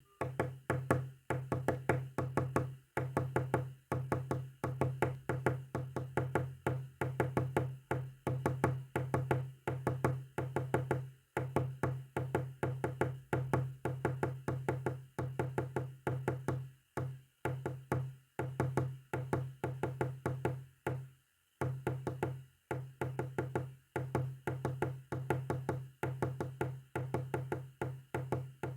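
Morse code sent as a fast stream of short, low, buzzy clicking elements, grouped into runs with brief irregular pauses between them.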